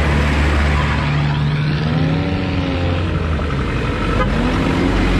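Off-road vehicle engines running in a convoy, the engine pitch rising and falling twice as vehicles move off and pass.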